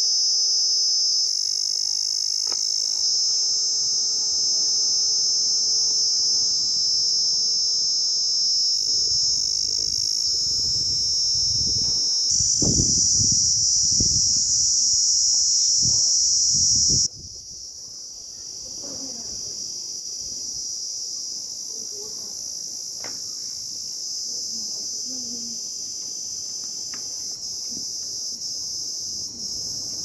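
Cicadas singing: a steady, high-pitched buzz that drops sharply in loudness a little over halfway through and carries on more quietly.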